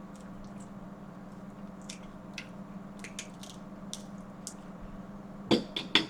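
A person eating: faint wet chewing and mouth clicks, then a few sharp knocks near the end, like food or utensils against a plate.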